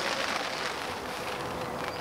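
Steady rain falling, an even hiss of drops, with a faint steady hum beneath it.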